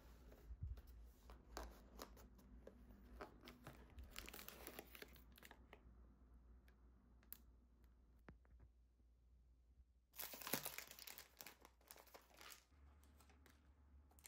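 Clear plastic film wrapper crinkling as a packed food item is handled and torn open. A denser, louder burst of tearing and crinkling comes about ten seconds in.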